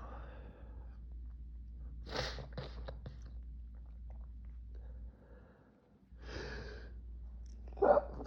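A man breathing heavily and sniffing through a nose irritated by a pollen allergy, with noisy breaths about two seconds and six seconds in. Near the end comes a short, loud burst of breath and voice.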